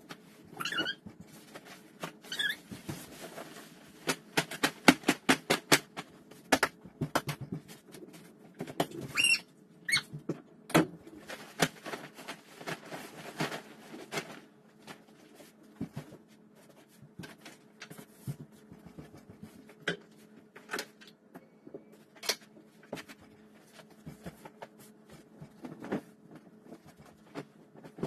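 Sheets and blankets rustling and flapping as a bed is stripped and remade by hand, in a quick run of rustles and soft snaps that is busiest in the first half. A few brief high squeaks come in early on.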